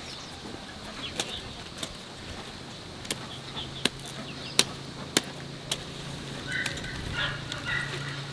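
Chickens clucking in short calls near the end, after a series of about seven sharp, irregular knocks.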